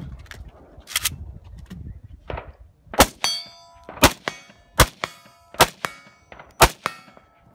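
Six single shots from a 5.45×39 mm AK-pattern rifle, about a second apart after a two-second pause, each of the last five followed by the ringing clang of a hit steel target.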